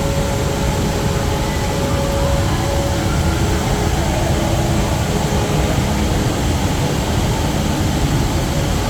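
Steady, loud rush of a tall indoor waterfall, the Rain Vortex's water falling into its basin, with faint held tones of voices or other background sounds in the hall.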